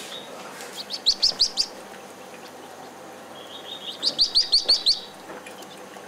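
Madagascar pochard duckling peeping: two quick runs of high chirps, about five a second in and about six more near four seconds in.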